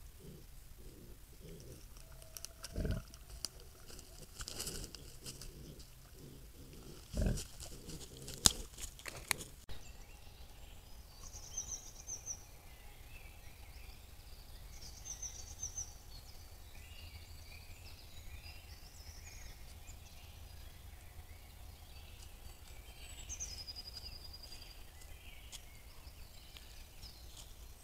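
Wild boar feeding close by, with two short low grunts about three and seven seconds in and scattered clicks and crackles of rooting in dry litter. After about ten seconds this gives way to songbirds in woodland: short high trills and, near the end, a falling whistle that levels into a held note.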